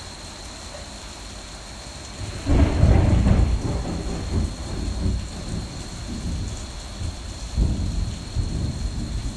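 Heavy rain falling steadily. About two and a half seconds in, a loud clap of thunder breaks and rolls on as a long rumble, swelling again near the end.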